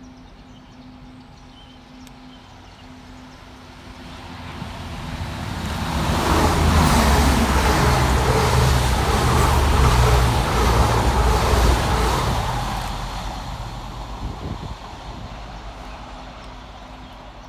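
Two coupled Class 220 Voyager diesel multiple units passing fast through the station. The deep rumble and rushing noise build from about four seconds in, stay loudest for around six seconds, then die away.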